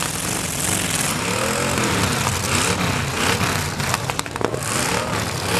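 Full-size demolition derby cars' engines revving up and down in the arena, with a few sharp knocks about four seconds in.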